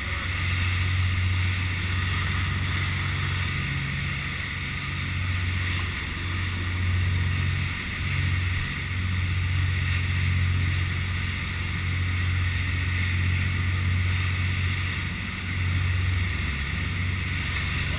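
Diesel engines of a 54-foot custom Carolina sportfishing boat running at speed: a steady low drone, with wind and water noise rushing over it inside the enclosed flybridge. The drone dips briefly twice.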